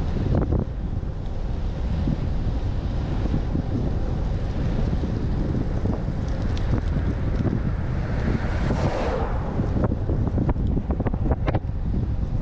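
Wind buffeting a GoPro Hero8's microphone during a fast road-bike descent, a steady low rumble with a brief louder hissing rush about nine seconds in.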